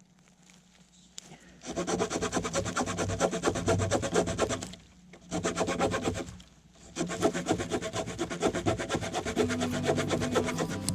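Fast, even rasping of a blade working wood, like sawing or filing. It starts about a second and a half in and pauses briefly twice near the middle.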